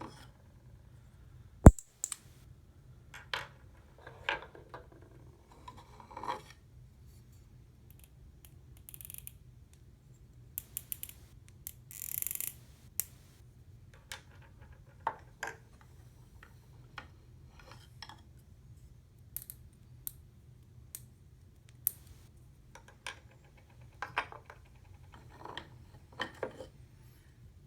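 Tobacco pipe stems being twisted out of their shanks and set down: scattered small clicks, scrapes and knocks, with one sharp click about two seconds in.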